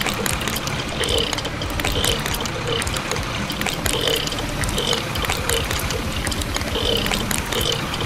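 Wet slurry pouring in a thin stream from a toy concrete mixer truck's chute onto a plastic deck, a steady pouring and dribbling sound with small splatters over a low rumble.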